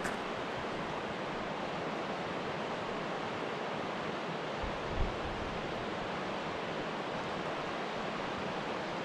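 Rushing water, a steady even rush like a river running over rapids or a waterfall, with a short low bump about five seconds in.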